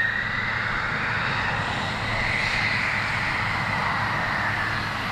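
Jet aircraft engine noise: a steady roar with a high whine that drifts slightly up and down in pitch, over a low steady hum.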